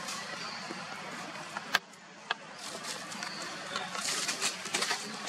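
Steady outdoor background hiss with one sharp click a little under two seconds in, a smaller click soon after, and a run of faint clicks and rustles near the end.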